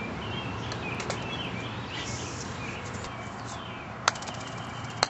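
Birds chirping over steady outdoor background noise, then a sharp click of a putter striking a golf ball about four seconds in, followed by a second click about a second later.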